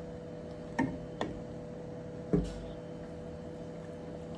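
Three light taps or clicks, two close together and a louder one about a second later, over a steady low hum.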